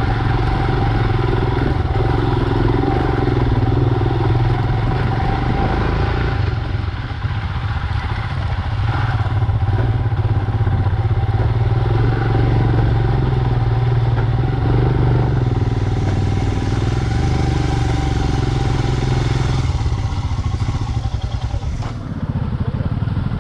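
Royal Enfield Himalayan's single-cylinder engine running steadily while the motorcycle is ridden, the engine note easing briefly about seven seconds in and again near the end.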